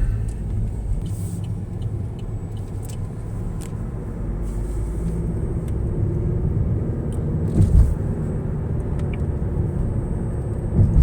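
Road and engine noise inside a moving car's cabin: a steady low rumble, with a brief thump nearly eight seconds in.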